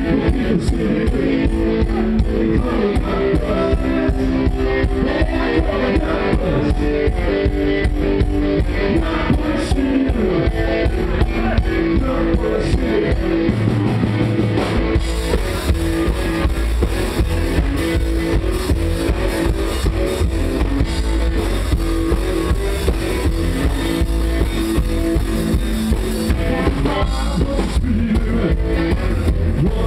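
Live country rock band playing: drum kit keeping a steady beat under electric guitar and upright double bass. The low end drops out briefly about halfway through.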